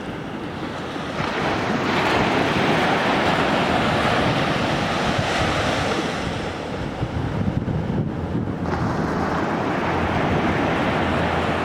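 Sea waves washing onto the shore: a wave surges in about a second in and rushes for several seconds, eases off around eight seconds, then another builds. A low wind rumble on the microphone runs underneath.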